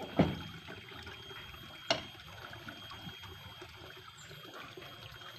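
Water trickling steadily along a shallow irrigation channel, with two sharp knocks near the start, about a second and a half apart, as the metal hand-tractor frame is shoved about on the pickup's wooden bed.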